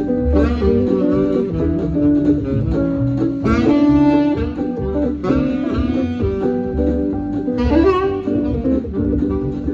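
Saxophone playing a melodic solo over a backing track with guitar and bass keeping a steady rhythm.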